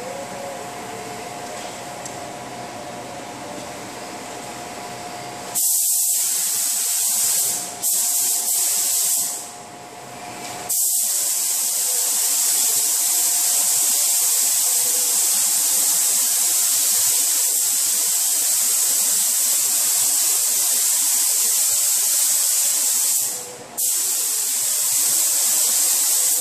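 Compressed-air paint spray gun hissing as silver base coat goes onto a car bumper. It is triggered on about five seconds in and stops briefly three times, the longest pause about a second and a half. Before it starts, a steady hum is heard.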